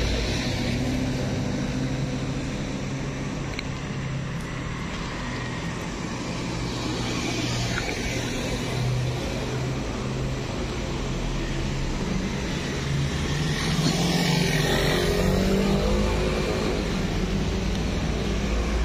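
Steady low rumble of road traffic, with a vehicle passing louder about fourteen seconds in.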